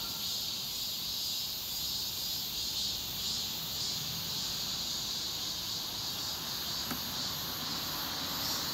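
A steady chorus of night insects, pulsing softly, over the low rumble of a garbage truck's engine as it drives off.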